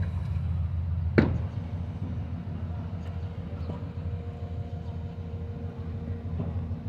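A steady low engine drone, with a single sharp knock about a second in.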